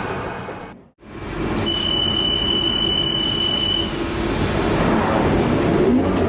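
Rail car at a station: a hiss cuts off just under a second in, then over the steady rumble of the train a single steady high door-warning beep sounds for about two seconds. Near the end a low motor tone rises.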